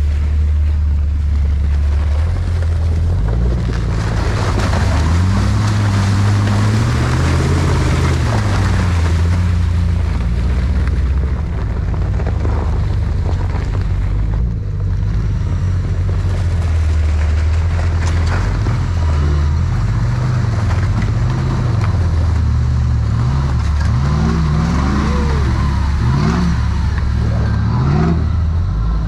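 Jeep engine running on a trail, its pitch rising and falling with the throttle, with a few quick revs near the end. A steady rushing noise of the drive runs along with it.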